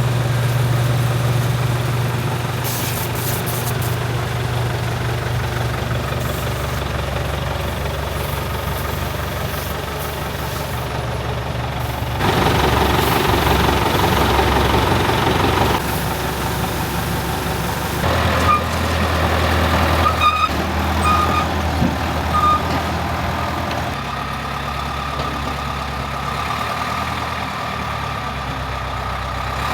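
Caterpillar D4C bulldozer's freshly overhauled diesel engine running at a steady idle. About twelve seconds in, a louder rushing noise lasts a few seconds, and a few short clinks follow a little later.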